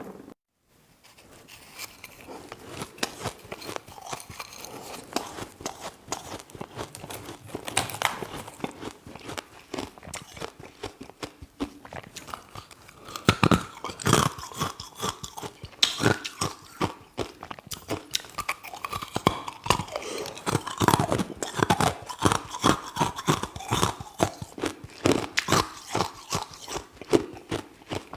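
A person biting and chewing ice close to the microphone: rapid, irregular crunching and crackling, getting louder and denser about halfway through.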